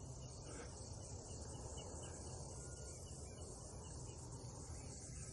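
Steady high-pitched chorus of insects trilling, with a low rumble of wind on the microphone underneath.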